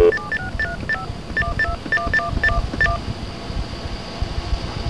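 Telephone keypad (DTMF) tones: a rapid string of about fifteen short beeps over the first three seconds, a new destination number being keyed in after the calling service's prompt. Low line noise continues underneath.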